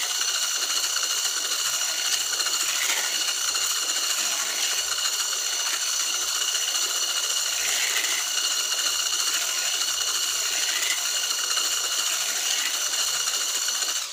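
Electric hand mixer running steadily with a high whine, its single beater churning cake batter in a plastic bowl; the motor cuts off suddenly at the very end.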